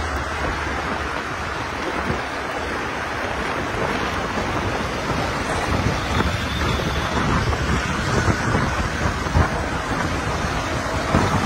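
Steady rush of wind on the microphone of a moving bicycle, with motor traffic passing on the road.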